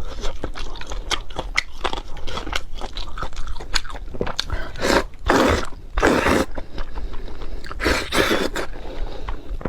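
Close-miked eating sounds: a person chewing and biting, with frequent small wet clicks and three longer noisy stretches about five, six and eight seconds in.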